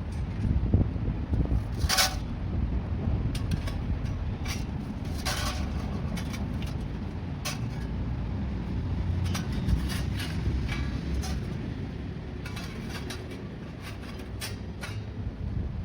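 Parts of a flat-pack fire pit knocking and clicking as they are fitted together, with scattered sharp knocks, the loudest about two seconds in and a run of them near the end, over a steady low rumble.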